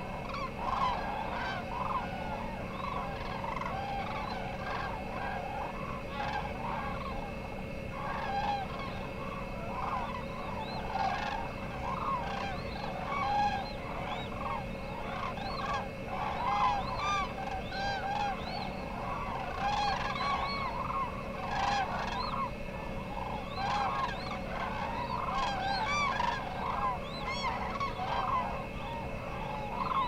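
A large flock of waterbirds calling without pause, with many short calls overlapping one another.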